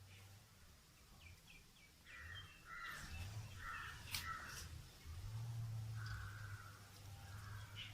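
Crows cawing faintly, a run of short caws spread over a few seconds, over a steady low hum, with a couple of sharp clicks.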